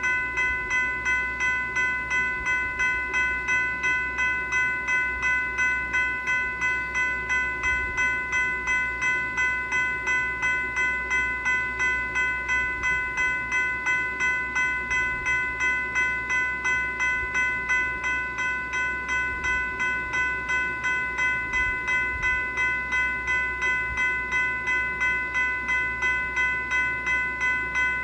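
General Signals Type 3 electronic bell, a railroad-crossing e-bell, dinging continuously at about two to three strikes a second. Each ding is a bright bell-like tone that fades before the next.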